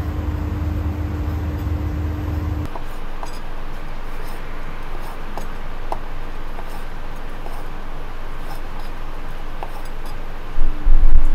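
Knife halving cherry tomatoes on a plastic cutting board: faint light taps of the blade on the board every second or so, over a steady rushing background noise. A few heavy low thumps near the end.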